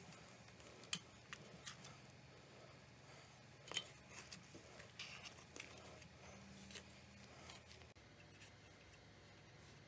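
Faint handling noises from an aluminium tube pan: a few light clicks and taps as dough rolls are pressed in and the pan is steadied by its rim, over a low steady hum.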